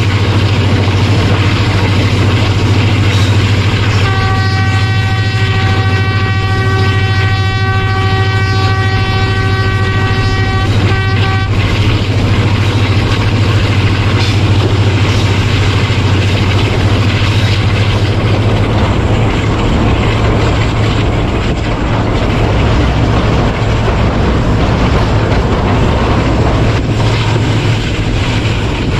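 A train under way with the steady low drone of its ZCU-30 diesel-electric locomotive. About four seconds in, the locomotive's horn sounds one long chord lasting some seven seconds.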